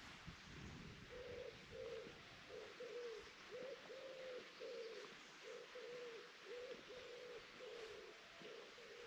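A bird calling faintly with a long run of short, low cooing notes, about two a second, starting about a second in.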